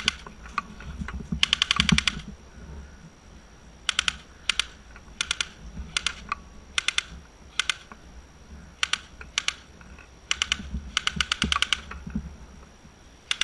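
Airsoft guns firing: sharp cracking clicks, some single and some in quick bursts of several shots, notably about a second and a half in and again near the end.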